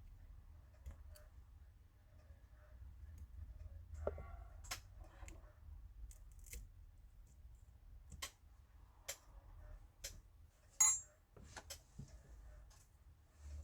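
A small hand tool scraping and clicking against the Samsung Galaxy S10e's camera lens frame as old adhesive is picked off, in about a dozen irregular sharp clicks and short scrapes, the sharpest a little before the end.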